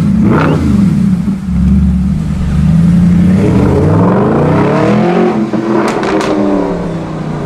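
Mercedes-Benz SLS AMG's 6.2-litre V8 through an aftermarket exhaust. It runs steadily, revs up for about two seconds and drops back, with a sharp pop near the start and two quick pops as the revs fall.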